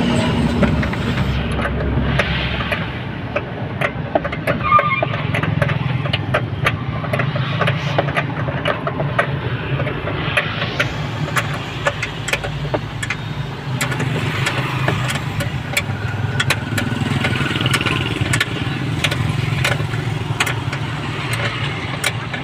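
A steady engine drone from a nearby running vehicle, not the Innova, which is switched off. Over it come many short metallic clicks and taps from bolts and hand tools on the fuel filter bracket.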